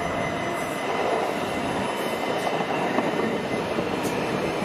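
An old Swiss-built SIG high-floor sneltram running past close by, its wheels rumbling on the rails, with a few brief high clicks and a steady high whine throughout.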